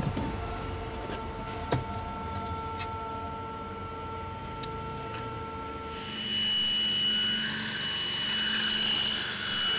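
Laser cutter's fans running with a few steady tones, with light clicks and rubbing as the cut sheet is handled. About six seconds in a louder, higher-pitched machine whine takes over and runs steadily until near the end.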